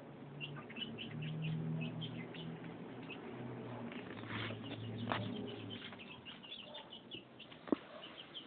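Chicks peeping over and over in short high calls, with a low steady hum under the first six seconds or so and a single sharp click near the end.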